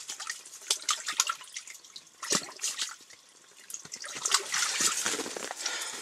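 Water splashing and dripping in an ice-fishing hole as a largemouth bass is pulled up through it, with irregular sharp clicks and splashes and a quieter moment about halfway through.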